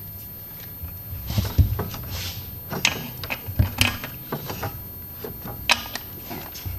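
Scattered, irregular clicks and knocks of hand tools and parts being handled in a car's engine bay.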